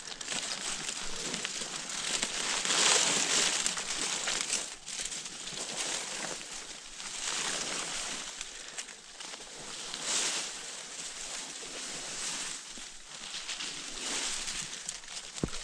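Rustling and crunching of someone pushing through ferns and undergrowth on foot, stepping on leaf litter, coming in uneven surges. A brief thump near the end.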